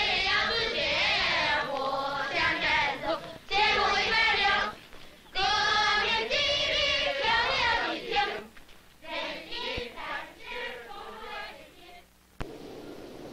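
A choir singing in phrases with short breaks, the voices wavering in pitch, fading away over the last few seconds. Near the end a sharp click, followed by a faint low rushing noise.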